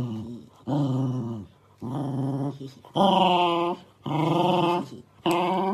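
Pembroke Welsh Corgi growling in a string of six short, loud grumbling growls, about one a second, some sliding down in pitch. It is protesting at being groomed with a slicker brush.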